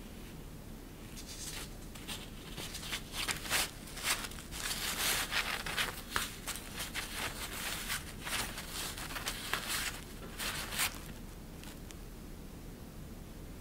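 Thin, shiny fabric sheet rustling in irregular bursts as a cat teaser wand is pushed and dragged under and over it. The rustling starts about a second in, is busiest in the middle, and dies away about eleven seconds in.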